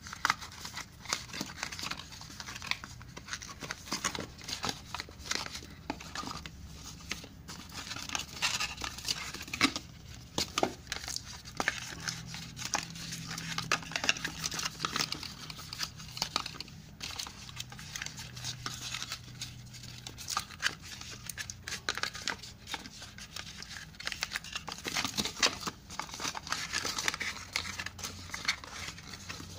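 Cardboard and plastic watch packaging being handled as a smartwatch is worked out of its box insert: continual crinkling and rustling with many sharp little clicks and snaps.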